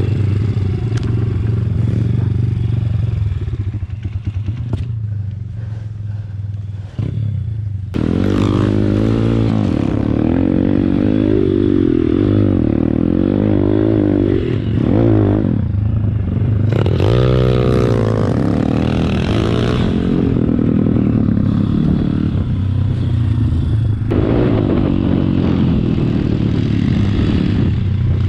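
MRF 140 RC Big pit bike's single-cylinder four-stroke engine under way, revving up and down; the revs drop for a few seconds, then pick up sharply about eight seconds in, with another rising rev a little later.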